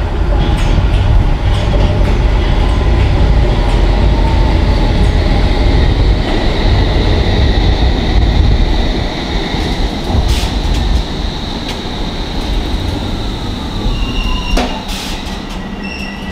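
London Underground District line S7 Stock train running into the platform and braking to a stop: a loud low rumble with a high squealing whine from the wheels and brakes. The sound eases as it slows, with a whine falling in pitch, and short repeated beeps start near the end.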